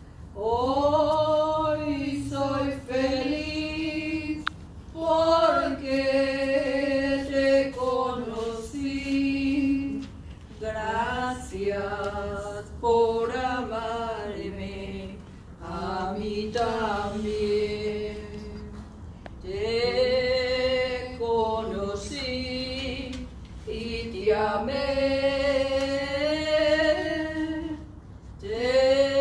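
A woman singing a slow Spanish hymn unaccompanied, in phrases of long held notes with short pauses for breath between them.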